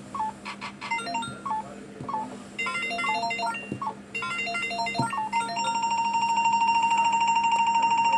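Electronic beeps from a Spinjack 21 video gaming machine: short beeped notes hopping in pitch like a little tune, then about halfway through a fast, even string of high beeps as the win is counted up onto the credit meter.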